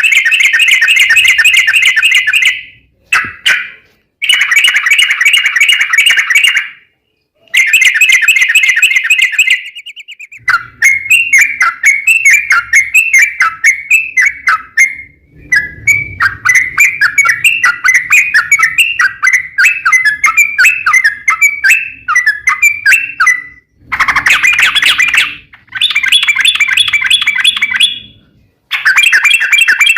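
Yellow-vented bulbul (trucukan) singing its fast rolling 'ropel' song: rapid strings of notes in bursts of a few seconds with short pauses, and one long unbroken, more varied run in the middle.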